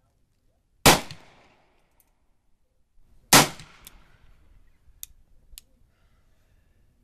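Two revolver shots from a French ordnance service revolver, about two and a half seconds apart, each with a short echoing tail, followed by two light clicks. The reports are light for a service revolver, 'like a 22', from ammunition the shooters suspect is underpowered.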